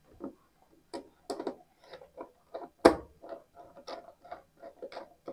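Irregular clicks and taps of wiring work on a plastic automatic transfer switch: red jumper wire being pushed into its screw terminals and a screwdriver working the terminal screws. One sharp knock about three seconds in is the loudest.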